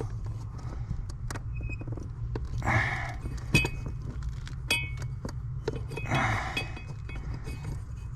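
Scattered metallic clicks and clinks with a couple of rustling scrapes as the accelerator pedal assembly and its cable are worked loose under the dashboard, over a steady low hum.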